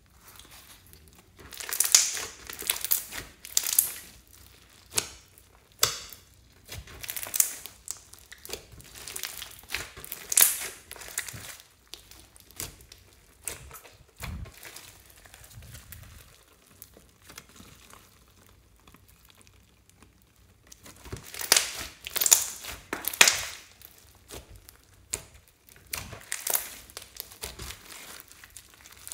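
Hands squeezing, pressing and stretching a thick fluffy slime with small beads mixed in, giving irregular runs of sticky crackles and pops. It is loudest in the first few seconds and again about two-thirds of the way through, and quieter in between.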